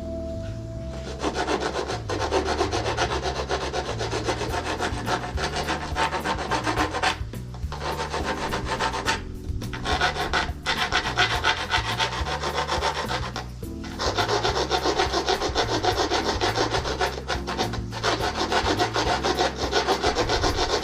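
Hand file rasping back and forth over the freshly cut ends of steel bolts, filing down the burrs, in fast strokes that come in several runs with short pauses between them.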